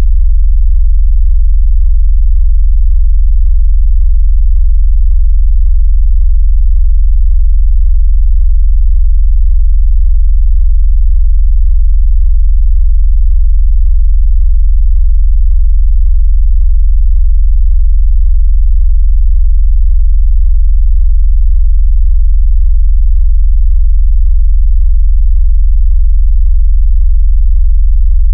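Loud, steady, very deep synthetic sine-like bass tone with a rapid even pulse, a phone-vibration tone of the kind played to shake a phone or push water out of its speaker.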